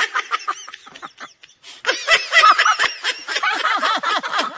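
Bursts of laughter: quick runs of short, high-pitched pulses. One bout trails off about a second in, and a louder bout starts just before halfway and runs on.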